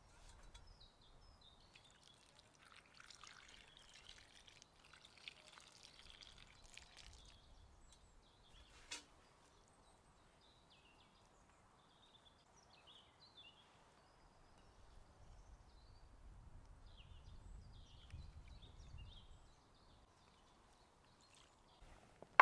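Faint liquid trickling for a few seconds, a single click, then a bird chirping in short repeated calls.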